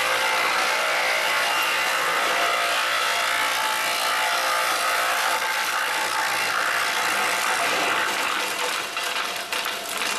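Electric wood chipper running with a steady, loud mechanical noise of motor hum and cutting. Near the end the sound dips and breaks up with a few crackles.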